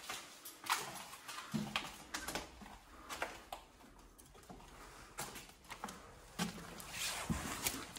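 Irregular crunches and clicks of footsteps on a debris-strewn concrete floor, mixed with rustling as the handheld phone brushes against a fabric jacket.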